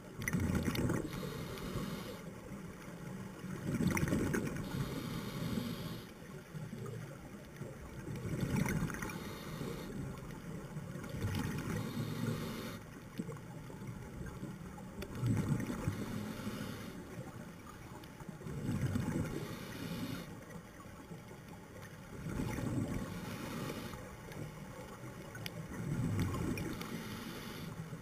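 Scuba diver breathing through a regulator underwater: a hiss on each inhale, then a low rush of exhaled bubbles, repeating about every three and a half seconds.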